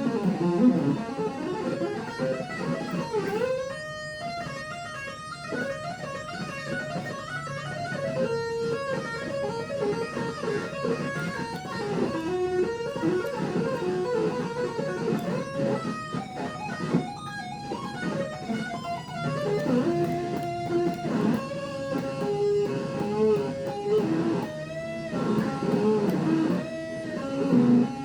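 Ibanez RG electric guitar played through a Zoom G3Xn multi-effects processor: a melodic single-note lead line with some notes bent in pitch.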